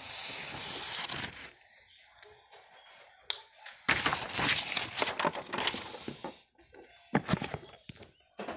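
Handling noise from a phone microphone rubbing against cloth, in a few irregular rustling bursts with an odd click or knock.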